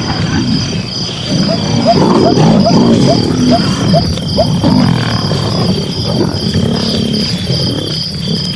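Lions growling and snarling, deep and loud, with a run of short higher-pitched calls a couple of seconds in.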